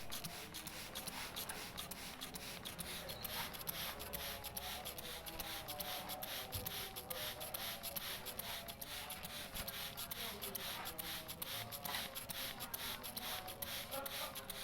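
Hand-pumped spray bottle squirting water over and over in quick short hisses, soaking a greater green leafbird during its bath.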